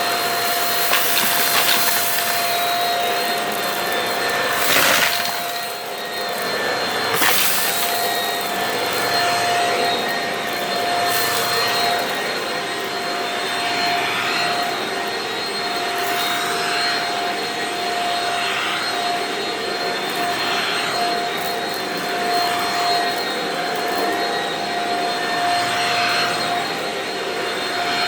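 Vacuum cleaner running on carpet, with a steady motor whine over its rushing airflow. The rushing swells every couple of seconds, and there are a few brief louder moments in the first few seconds.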